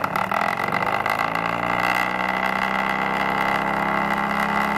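A 12-volt DC motor spinning up the magnet rotor of a homemade generator: a hum that rises in pitch over the first second or so as it comes up to speed, then holds steady with a high whine above it.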